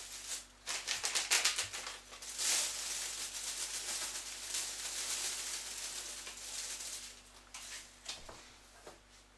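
Dry seasoning shaken from a paper packet into a plastic roasting sleeve of cut potatoes. A quick run of small rustling taps, then a lighter steady patter with crinkling of the plastic that fades away, and a few last rustles near the end.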